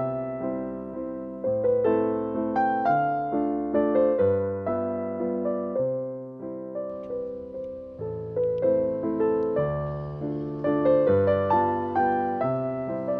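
Piano music: a slow melody of struck notes, each fading away after it is played, over low bass notes.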